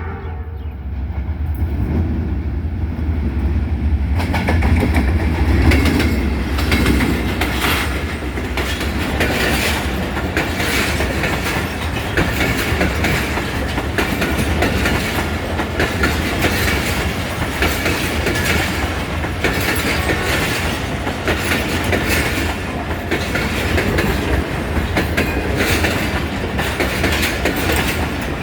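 Passenger train rolling into the station close by: a deep rumble as the locomotive comes past in the first few seconds, then the coaches following with a steady clickety-clack of wheels over the rail joints.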